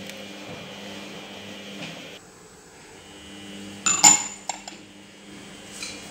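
A porcelain lid set down on a glass mug: one sharp clink with a short ring about four seconds in, then two or three small clicks as it settles. A steady low hum runs underneath.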